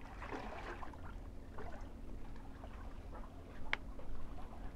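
Faint seaside ambience: small waves lapping at the water's edge over a low rumble, with one brief sharp sound about three and a half seconds in.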